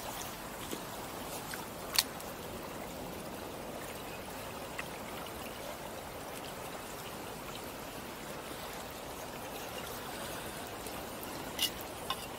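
Shallow river water running and trickling steadily over stones. A single sharp click about two seconds in, and a couple of faint knocks near the end.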